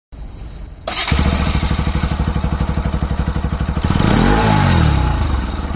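Bajaj Pulsar RS 200's single-cylinder engine comes in about a second in and idles with an even, pulsing beat. Near the end it is revved up and lets back down.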